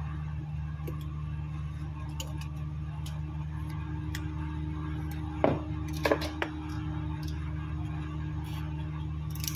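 A few short, sharp clicks and taps as a smartphone is handled and pried apart with a plastic opening tool, most of them about five and a half to six and a half seconds in. Under them runs a steady low electrical hum.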